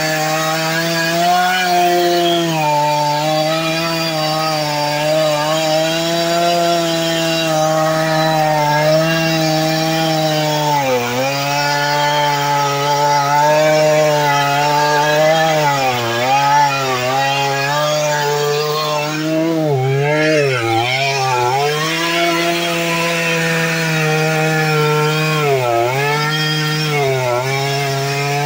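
Stihl MS 230 two-stroke chainsaw running at high revs while cutting wood, its engine pitch dipping several times as the chain bites in under load.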